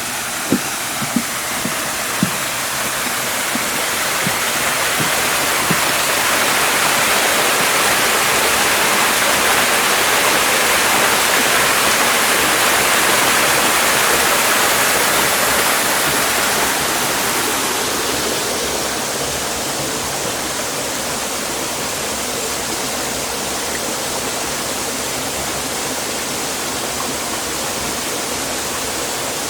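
Rushing, splashing water, like a stream or spillway, growing louder for the first half and then easing off to a steadier level. A few light clicks in the first two seconds.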